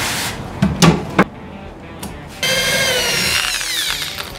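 A few sharp knocks, then a handheld power drill runs, boring a pilot hole into the wooden wall, and winds down, its whine falling in pitch as it slows.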